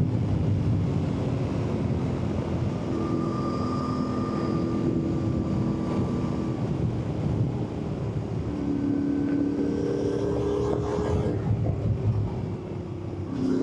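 Yamaha Ténéré 700's parallel-twin engine running steadily at road speed, with wind rushing over the microphone. The engine note climbs for a couple of seconds past the middle, then drops back near the end.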